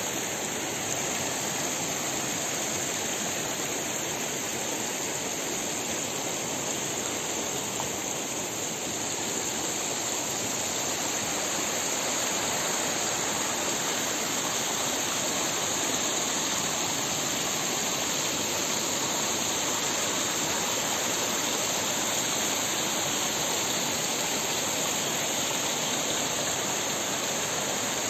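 Shallow mountain stream running over rocks, a steady rush of water that gets a little louder about a third of the way in.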